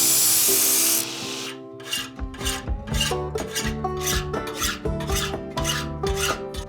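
Steel shoe horn being hand-filed: a continuous rasping hiss for about the first second, then repeated file strokes about two to three a second. Background music with a bass beat joins about two seconds in.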